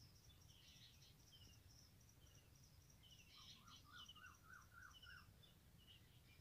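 Near silence with faint birds chirping in the background: short high chirps repeating, and a run of about seven quick notes in the middle.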